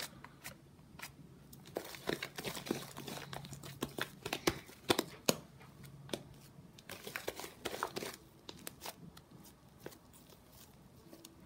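Fluffy slime being pressed onto a surface and peeled off again and again: irregular sticky crackles and small pops as it picks up leftover slime residue.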